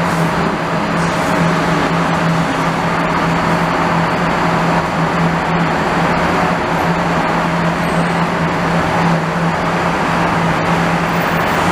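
Steady road traffic noise, an even rush of passing cars, under a constant low hum.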